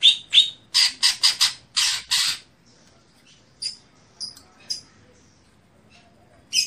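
Green leafbird (cucak hijau) calling: a quick run of about eight loud, harsh calls in the first two and a half seconds, then a few short, thin high chirps.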